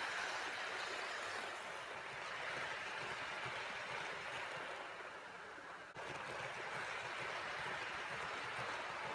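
Hornby OO gauge HST model train running on its track: a steady running noise of wheels and power-car motor, dipping briefly about five seconds in and then steady again as the power car passes.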